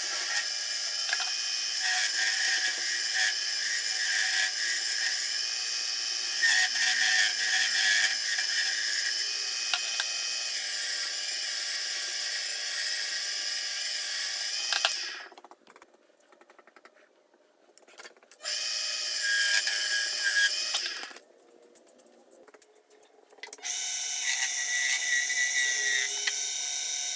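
Wood lathe running with a steady motor whine while a tool cuts a maple screwdriver handle, giving a hissing scrape. The sound drops away twice in the second half, briefly, and comes back each time.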